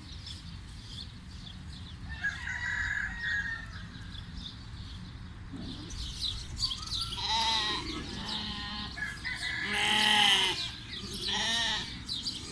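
Goats bleating: several short, wavering calls in the second half, the loudest about ten seconds in. Small birds chirp faintly earlier on.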